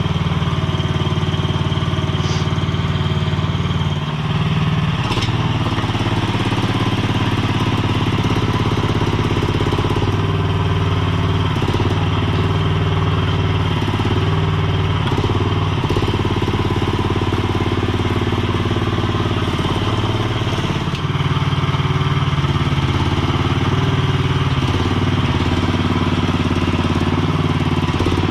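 Mini skid steer's small engine running steadily, its pitch shifting slightly as the machine works.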